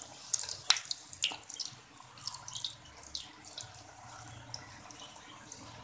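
Keema-filled kachori deep-frying in hot oil in a karahi: the oil sizzles and crackles, with several sharper cracks in the first second and a half, then settles to a steadier crackle.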